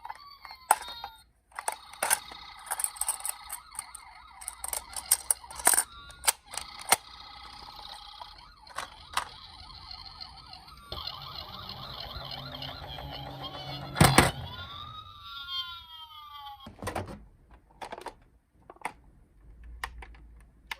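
Electronic sirens from toy minicar emergency vehicles: a gliding wail at first, then steady tone patterns and a fast warbling yelp, with a falling glide near the end. Many sharp clicks and knocks from the toys being handled cut through, the loudest about 14 seconds in.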